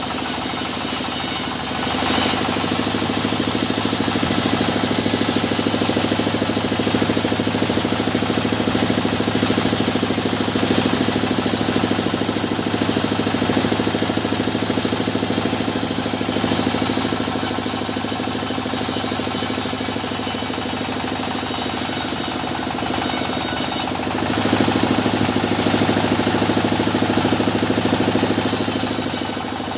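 Engine-driven sawmill running steadily, its even machine hum dipping briefly twice, about two seconds in and again shortly before the end.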